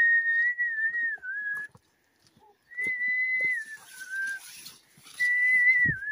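Whistling: three long held notes at about the same high pitch, each wavering and then dropping to a lower note, with short gaps between them. A dull low thump near the end.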